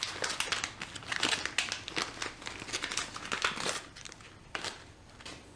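Clear plastic packaging bag crinkling as hands work it open, a dense run of crackles that thins out after about four seconds.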